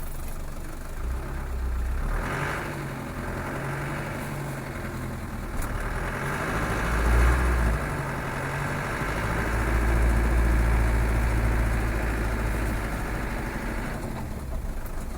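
Vehicle engines running, with the low rumble swelling louder a few times, about two, seven and ten seconds in: a Land Rover 110 idling while a snowplough truck works the yard.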